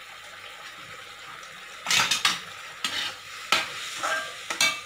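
Steel slotted spatula scraping and clinking against a kadai as drumstick sambar is stirred, four or five strokes in the second half, some with a short metallic ring. Under it a steady sizzle from the hot pan.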